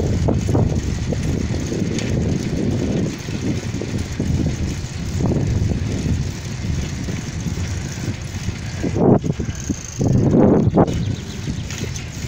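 Wind buffeting the microphone of a phone moving along an asphalt road: a steady low rumble with stronger gusts about nine and ten and a half seconds in.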